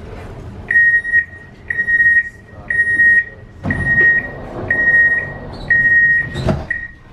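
Door-closing warning signal of a Škoda Varsovia metro train: a high, steady electronic beep repeating about once a second, seven times, with a thump near the end.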